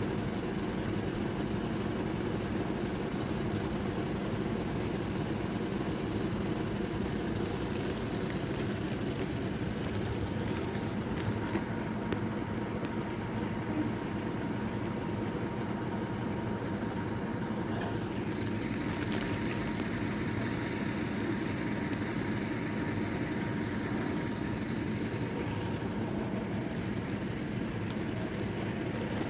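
Steady low engine hum from road vehicles idling at a closed railway level crossing, level and unbroken throughout.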